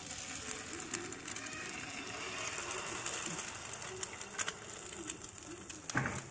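Egg poured into a bell-pepper ring in a hot, oiled non-stick pan, frying with a crackling sizzle that swells about a second and a half in, with scattered sharp ticks of spitting oil. A single knock near the end.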